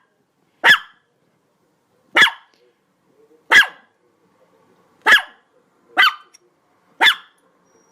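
A dog barking loudly in single, sharp barks, six of them, spaced about a second to a second and a half apart with quiet in between.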